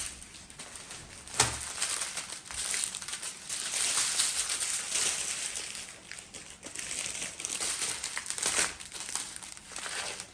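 Small plastic bags of diamond painting drills crinkling as they are handled and sorted, with a sharp click about a second and a half in.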